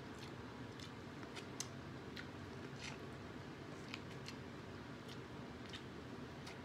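Faint, close-miked chewing of a cheesy baked potato: scattered wet mouth clicks and smacks, about one or two a second, at uneven intervals over a steady low hum.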